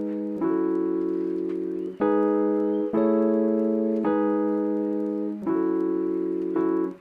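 Background music: a slow piano or electric-piano piece, held chords changing about once a second.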